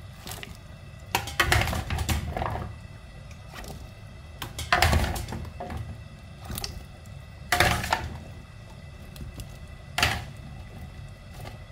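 Metal ladle knocking against a stainless steel stockpot as chunks of potato and carrot are tipped into stew broth, four bouts of knocks and clatter about every two and a half to three seconds.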